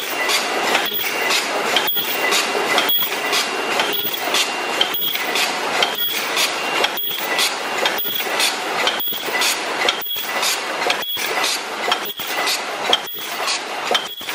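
Debao-5000S paper bucket forming machine running, its mechanism clattering in a regular cycle of about one beat a second, with clinks and a high steady whine over the noise.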